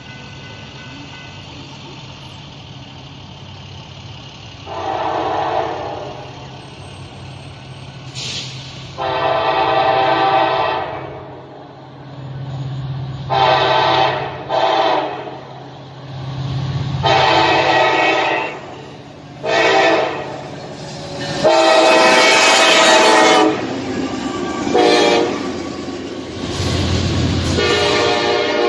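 Diesel locomotive air horn sounding a series of long and short blasts over the low, steady rumble of the locomotive.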